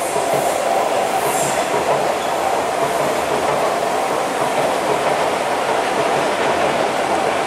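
SMRT North South Line electric metro train running past on an elevated viaduct: a steady rolling noise of steel wheels on the rails.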